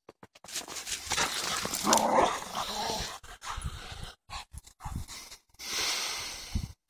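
Dogs playing in snow: a dog vocalizing amid rustling noise, loudest about two seconds in.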